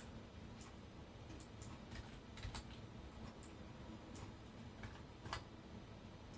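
Faint, scattered clicks of a computer mouse and keyboard over a low steady room hum, about a dozen in all, with a slightly louder click about five seconds in.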